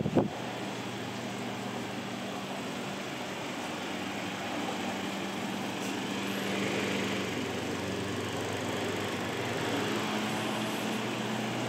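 Restored 1939 Emerson 77646-AG desk fan running steadily: a low electric motor hum under the rush of air from the spinning blades. A few brief knocks come right at the start.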